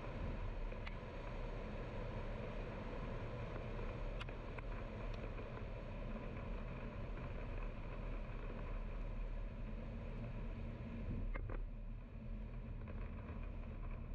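Steady road and engine noise of a car driving, with a few faint clicks.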